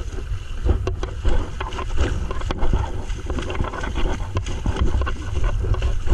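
Shallow river water rushing and splashing around a camera held at the water's surface: a steady low rumble with frequent small knocks and splashes.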